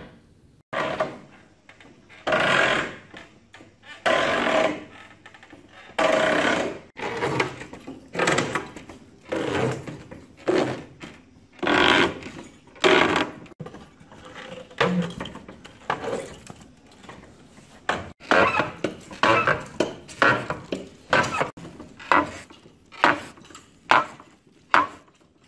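Hand-turned iron spoon auger boring into the end grain of an oak trunk: the bit cutting and scraping the wood in repeated strokes about a second apart, coming a little quicker toward the end.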